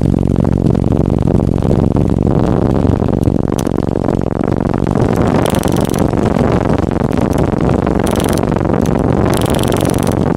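Very loud car-audio bass from a wall of ten Sundown Audio Team NEO 18-inch subwoofers on Dynamic Audio DA-7000.1 amplifiers, playing a bass drop. It comes through as a dense, steady low rumble that swamps the microphone, with a few short high hisses in the second half.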